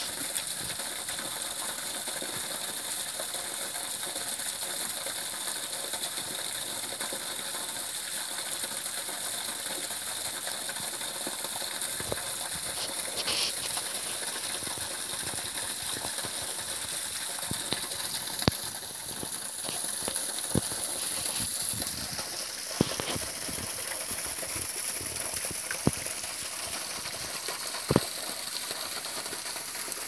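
Steady hiss of running stream water, with a few sharp clicks in the second half.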